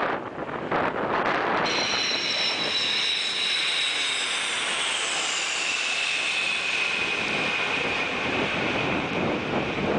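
KC-135 Stratotanker's four turbofan engines passing low overhead with a rushing noise and a high whine. The whine sets in about two seconds in and falls slowly in pitch as the jet moves away. Wind buffets the microphone before the whine comes in.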